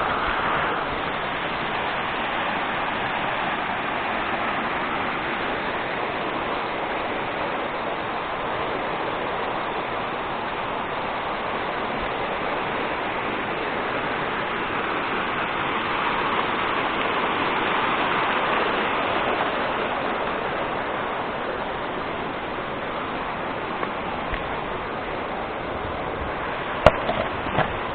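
Steady rush of falling water from a waterfall, swelling a little about two-thirds of the way through, with one sharp click near the end.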